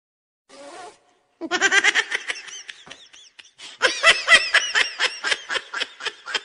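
High-pitched laughter in quick rhythmic pulses, starting about a second and a half in. It comes in two bursts with a short pause between them.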